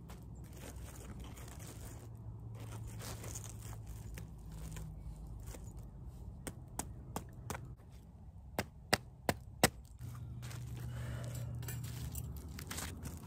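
Hammer striking as black landscape fabric is pinned to the ground: several spaced taps, then four sharp quick blows about a third of a second apart around the middle.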